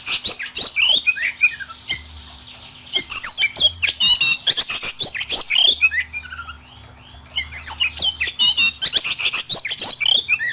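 Oriental magpie-robin (kacer) singing a fast, harsh song of rapid chirps, whistled slurs and rasping notes in three bursts, with short lulls about two seconds in and again about six seconds in. It is a male in full song delivering coarse fill phrases (isian kasar).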